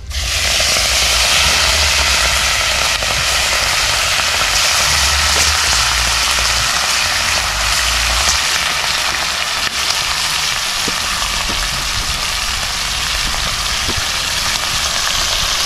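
Pieces of seasoned wild hog meat sizzling in hot oil in a pot over a wood fire. The sizzle starts suddenly as the meat goes in and then runs steadily, with a low rumble underneath and a few faint crackles.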